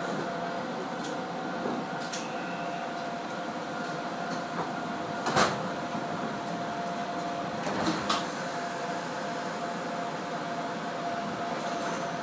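Steady electrical hum of a standing ex-Keio 3000-series electric train, heard from inside the car, with a constant tone. There is a sharp click about five seconds in and two more clicks about eight seconds in.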